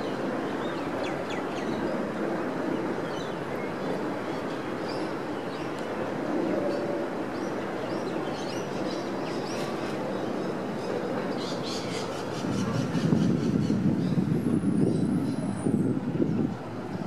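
Riverside city ambience: a steady low hum of distant traffic with birds chirping. About twelve seconds in, a louder low rumble rises and then drops away just before the end.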